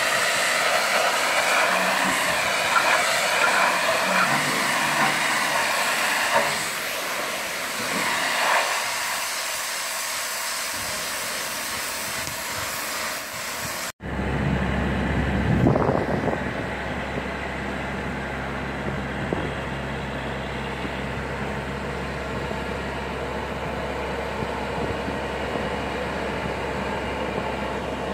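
Pressure washer spraying the hull of a boat hanging in a travel hoist, a steady loud hiss, to clear off oysters, mussels and seaweed before antifouling. After a sudden cut about halfway through, the travel hoist's engine runs steadily with a low hum as it carries the boat.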